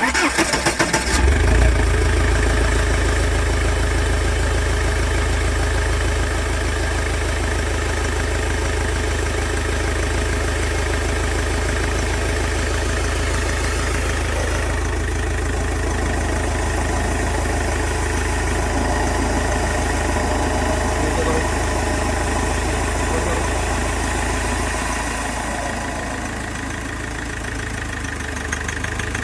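Mahindra Scorpio's 2.2-litre mHawk common-rail turbo-diesel starting up and catching at once, then running steadily with a rapid rhythmic tak-tak knock. The mechanics trace the knock to the EGR and turbo boost control: it stops with the EGR valve bypassed or with the boost raised. The level eases slightly near the end.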